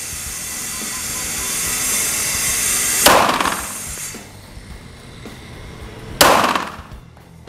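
Two 9mm pistol shots from a customised Glock 43X, about three seconds apart: slow, aimed fire. Each is a sharp crack with a short ringing tail. A steady hiss fills the first three seconds.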